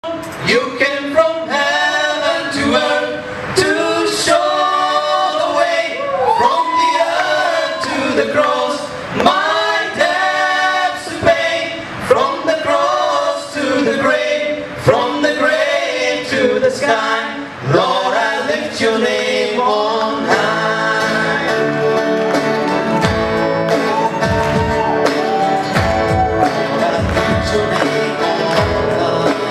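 A song played by a small band of keyboard, electronic rhythm pads and guitar, with a solo voice singing for about the first twenty seconds. After that the voice drops out, leaving held keyboard chords over a steady beat.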